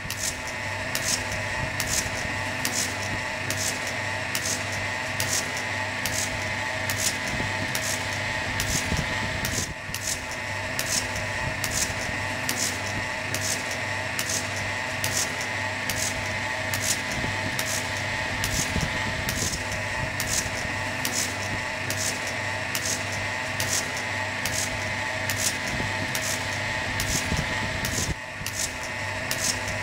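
Dairymaid portable bucket milking machine running during milking: the electric motor and vacuum pump hum steadily while the pulsator hisses and clicks in a regular beat, just under two pulses a second.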